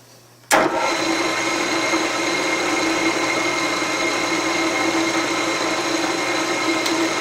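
Milling machine spindle running steadily with a 3/8 inch end mill in the chuck, a steady whirring hum with a high whine, starting abruptly about half a second in.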